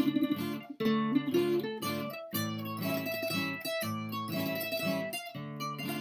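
Background music on plucked string instruments, a tune of held notes and chords that change every second or so.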